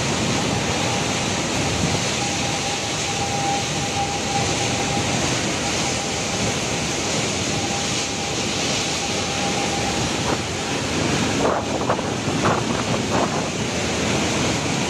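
Typhoon wind and driving rain: a steady rushing roar with gusts buffeting the microphone. A thin steady whistle runs through it for most of the time, and a few short, sharper sounds break in about twelve seconds in.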